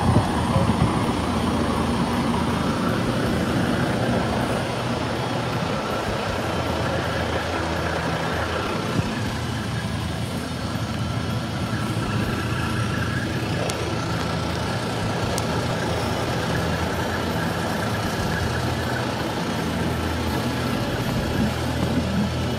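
Heavy diesel tow truck's engine running steadily.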